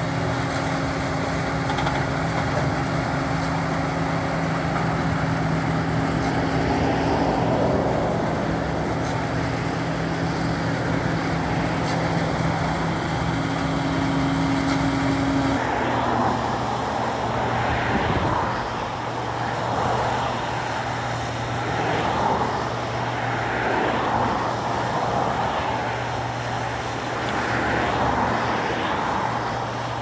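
John Deere 2058 combine harvester running close by while cutting wheat, a steady engine drone with threshing noise. About halfway through the sound changes abruptly to a more uneven, surging rumble as the combine works further off across the field.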